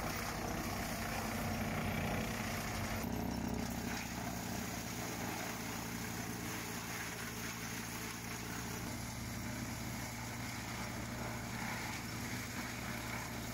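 Tractor engine running steadily under load, driving a Farmi Profi CH27 PTO-driven wood chipper as branches are fed in and chips are blown out. The sound shifts abruptly about three seconds in and again about nine seconds in.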